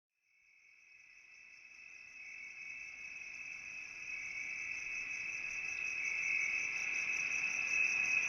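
Insects trilling in a steady high chorus, with a faster pulsing trill above it, fading in from silence and growing louder.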